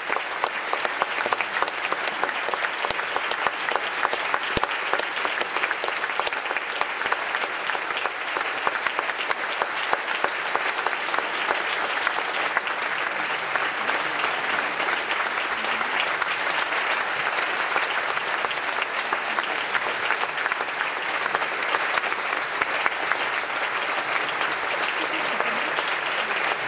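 Large theatre audience applauding: dense, steady clapping for the dancers' bows.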